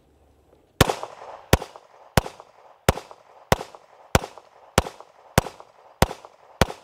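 Glock MHS contract-submission 9mm pistol firing ten shots at a steady pace, about one and a half shots a second, each crack followed by a short ringing tail.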